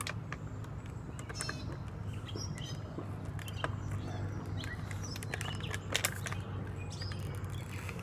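Thin plastic water bottles crinkling and crackling as they are chugged from and collapse, with scattered sharp crackles and a few short high squeaks over a steady low hum.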